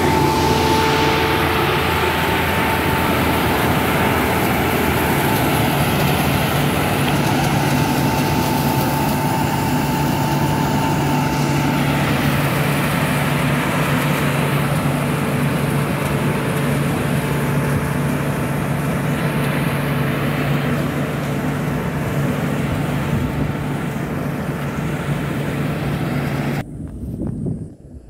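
Tracked rice combine harvester running close by: a loud, steady engine and threshing drone with a constant low hum and a higher whine. It drops away sharply near the end.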